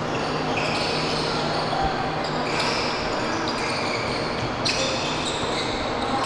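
Indoor basketball game on a hardwood court: sneakers squeaking in short high chirps over the noise of play, with the ball bouncing and a sharp knock near the end, in a large gym.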